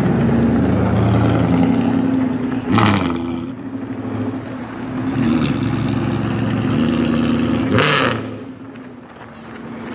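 V8 engine running and revving, its note rising and falling, with two sharp cracks about three and eight seconds in; after the second the engine quietens.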